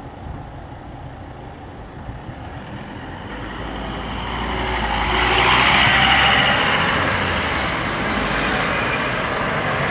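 Road traffic moving off: a car drives past close by, its tyre and engine noise rising to a peak about halfway through and then easing, with more cars following.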